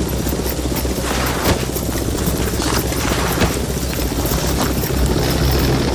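Battle sound effects: a helicopter running steadily, with a few sharp shots, the loudest about one and a half and three and a half seconds in.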